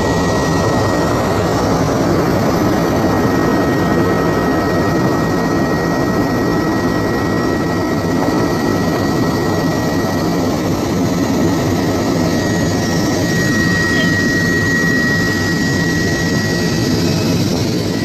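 Helicopter engine and rotor noise heard from inside the cabin in flight: a steady, loud rumble with a thin, high, steady whine over it that swells a little about three-quarters of the way through.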